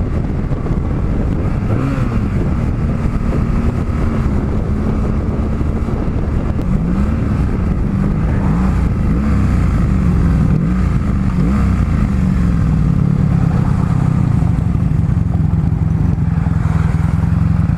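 Motorcycle engine running under way, its pitch rising and falling several times through the middle as it revs and shifts, then settling into a steadier drone near the end.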